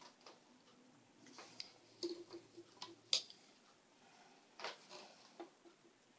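Rigid heddle loom being worked through a pick: scattered faint clicks and taps as the heddle, pickup stick and shuttle are handled, the sharpest about three seconds in.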